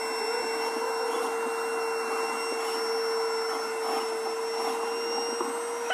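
A small electric motor running steadily, a continuous whining hum with a noisy rush.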